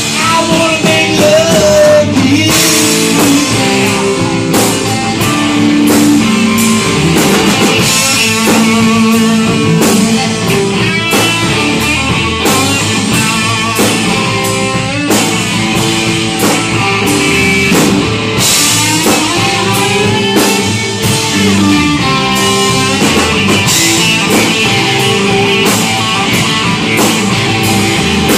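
Live rock band playing: electric guitars, electric bass and a Ludwig drum kit.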